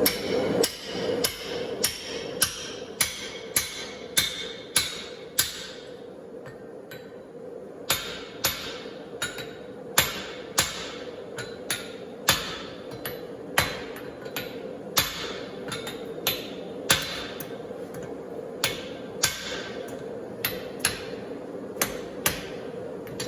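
Hand hammer striking a steel hammer-eye drift, driving it through the hot punched eye of a forged hammer head on the anvil. The blows come at a steady pace of one or two a second with a ringing clang, pausing briefly a few seconds in. A faint steady hum runs underneath.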